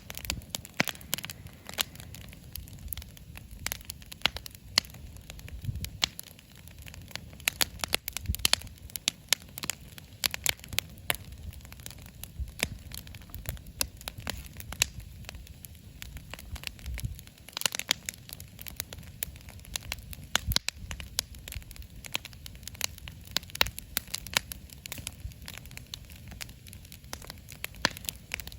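Wood campfire crackling, with frequent irregular sharp pops and snaps over a low steady rumble of the burning fire.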